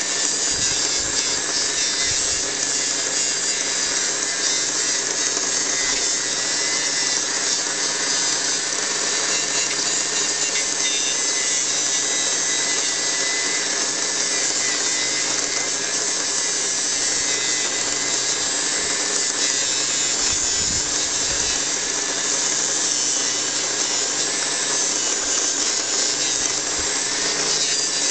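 Mini bench grinder motor running at a steady speed with a constant whine, while a brass lamp part is held against its small wheel and polished.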